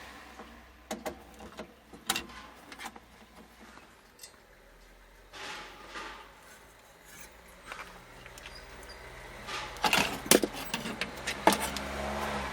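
Scattered clicks, taps and a short rubbing noise from hands working with tools and a TV's power-supply board, with a denser, louder run of clicks near the end.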